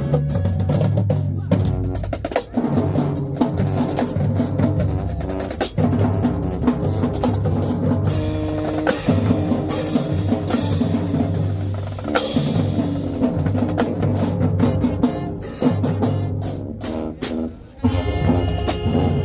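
HBCU-style marching band playing: brass holding low, sustained notes over a drumline of snare and bass drums, with a few crashes along the way.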